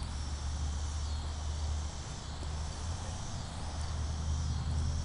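Insects trilling in the background, a steady high shrill that dips about once a second, over a low steady rumble.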